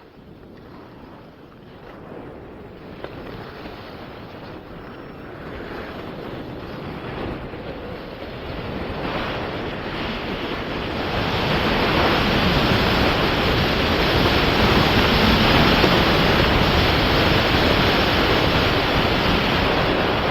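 Rushing wind on the microphone and skis hissing over snow during a steep downhill ski run. The noise grows steadily louder for about twelve seconds as speed builds, then holds.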